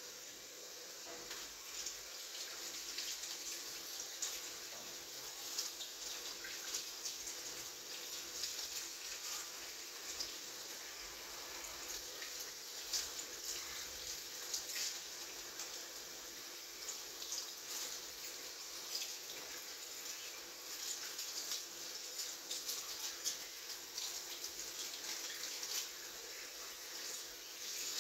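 Kitchen tap running into a stainless steel sink while food is rinsed by hand in a plastic colander, with frequent small splashes and clicks, busier in the second half.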